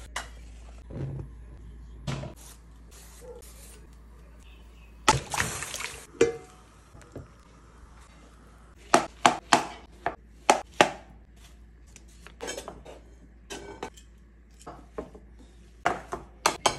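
Kitchen sounds in sequence. A tap runs briefly into a pot, and there is a loud rushing burst about five seconds in. Then come clusters of sharp knocks and clinks of utensils as cooked sweet potato is cut and mashed in a glass bowl.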